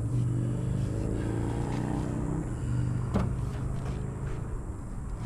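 Steady low hum of a running motor, with a single knock about three seconds in.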